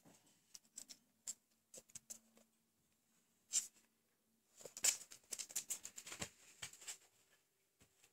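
Husky puppy scrabbling on a wooden floor while worrying a floppy toy: faint, scattered clicks and scuffs of claws and paws, thickening into a busy flurry in the second half.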